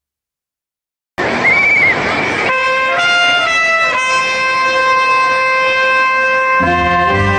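Background music that starts about a second in, after silence. After a brief noisy onset, wind instruments hold long, steady notes, and lower notes join about six and a half seconds in.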